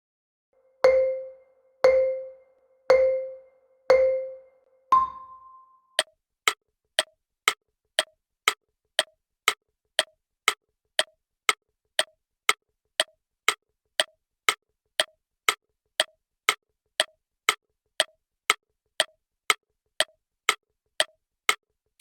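Quiz countdown timer sound effect: four low beeps a second apart, a higher beep marking the start, then a steady tick about twice a second as the clock runs.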